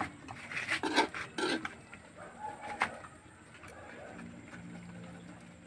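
Metal spoon scraping against a wok as beaten egg is stirred into cooking greens, several short scrapes in the first three seconds, quieter after.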